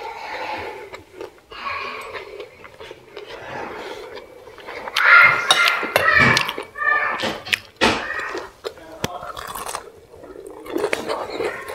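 Metal fork and spoon clinking and scraping against a ceramic plate while scooping rice and cauliflower, with close-up mouth and eating sounds. The loudest stretch comes about five seconds in.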